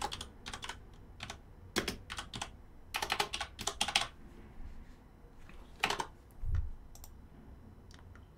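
Typing on a computer keyboard: bursts of quick keystrokes, thickest in the first four seconds and again about six seconds in, with a dull low thump about six and a half seconds in.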